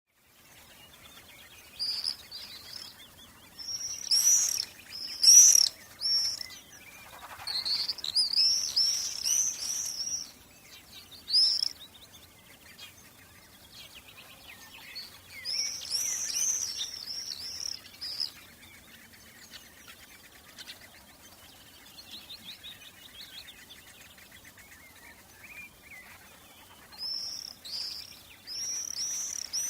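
Songbirds singing: bouts of quick, high repeated chirps separated by short pauses, with softer, lower twittering in the quieter stretches.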